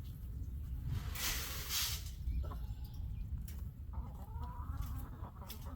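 Domestic hens clucking, with a short call about two seconds in and a longer, wavering call near the end. A brief rushing hiss comes about a second in.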